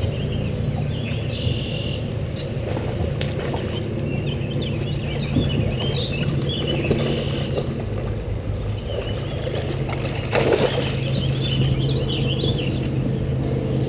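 Birds calling and singing all through, many short chirps and warbles, over a steady low hum.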